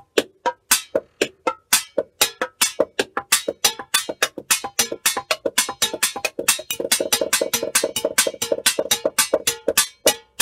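Homemade scrap percussion (cardboard-tube drums, tins and plastic tubs) played with sticks: a fast run of sharp, clicky strikes, several a second, some with a short ringing tone. About two-thirds of the way in the strikes crowd into a quicker roll, then ease back.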